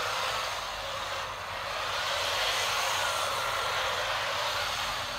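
Kyosho Mini-Z AWD RC drift car running on a hard floor: the small electric motor's steady whine mixed with tyre scrub, swelling and easing a little as the car drifts.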